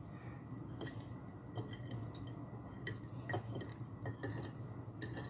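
Metal fork and spoon clinking against a ceramic plate: about eight light, irregular clicks.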